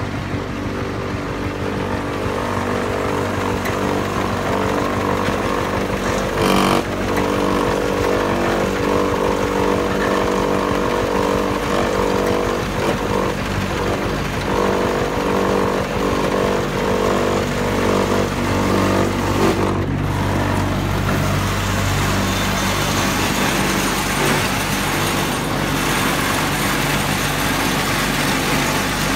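Lightweight concrete wall panel extruder running: a steady mechanical drone from its electric motors, with one short knock about six and a half seconds in.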